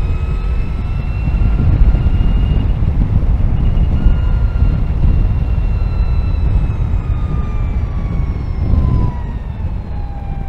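Energica Eva Ribelle RS electric motorcycle running at speed, its electric motor whining over heavy wind rumble. The whine rises slightly at first, holds, then falls in pitch toward the end as the bike slows.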